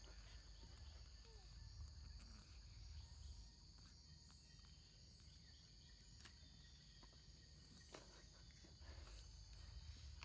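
Near silence apart from a faint, steady, high-pitched insect chorus, with a few faint clicks.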